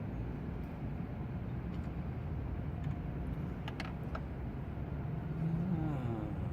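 A steady low mechanical rumble, with a few light sharp clicks about four seconds in, typical of hand tools against metal.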